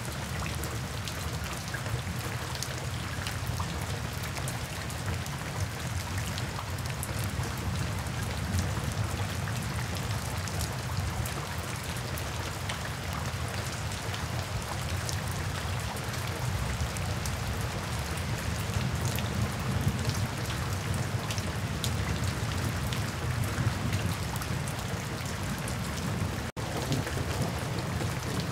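Steady rain falling, with many individual drops splashing on a wet surface. The sound cuts out for an instant near the end.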